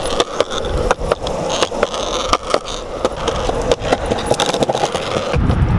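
Longboard's urethane wheels rolling on a concrete sidewalk: a steady rolling hum with frequent sharp clacks as the wheels cross the sidewalk joints. A low rumble comes in near the end.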